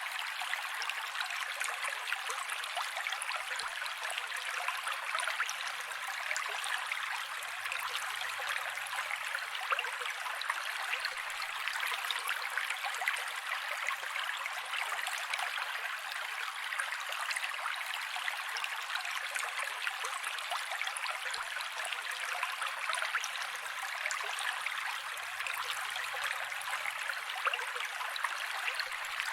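Mountain creek flowing: a steady, even rush of water with fine splashing, bright and without any low rumble.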